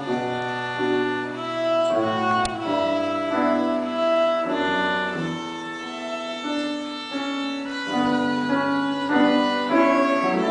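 Violin playing a melody in held, bowed notes, with piano accompaniment underneath.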